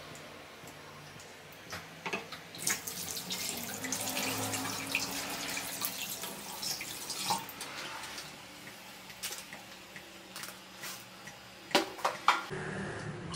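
Kitchen tap running into a sink for about five seconds, with scattered clinks and then a couple of sharp knocks near the end.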